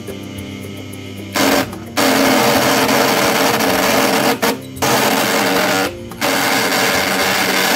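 Mini wood lathe's small motor running with a steady hum. About a second and a half in, a hand tool is pressed against the spinning wooden dowel, giving a loud rasping cutting noise that breaks off briefly three times as the tool is lifted.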